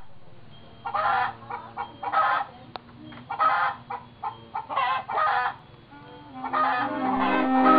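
Chickens clucking in short calls about once a second. Near the end a clarinet and other instruments start playing.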